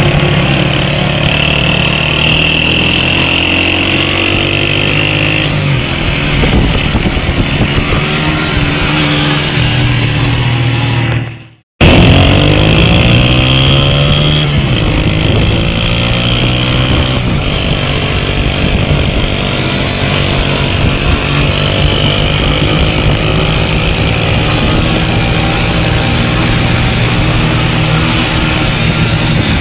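Motorcycle engine revving hard during stunt riding, its pitch rising and falling repeatedly. About eleven seconds in, the sound fades out and cuts straight back in.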